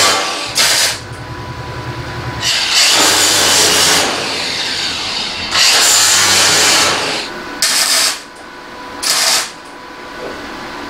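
Angle grinder with a flap disc grinding a weld seam on sheet metal in three long bursts, its motor running between them. Near the end, two short bursts of MIG welding crackle as the seam is tack welded.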